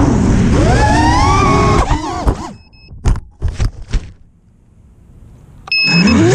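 Brushless motors of an FPV racing quadcopter whining, heard from the GoPro mounted on it, pitch rising and falling with the throttle. About two seconds in the quad crashes into brush: several sharp knocks and thuds as the motors cut out, then a quiet stretch with a couple of short high beeps. Near the end the motors spin back up suddenly as it takes off again.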